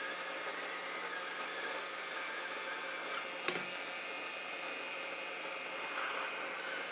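Steady hiss of blowing air from workbench equipment, with a single sharp click about halfway through.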